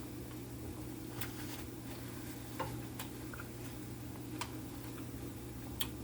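A few sharp mouth clicks at uneven intervals while chewing a sandwich, over a steady low hum.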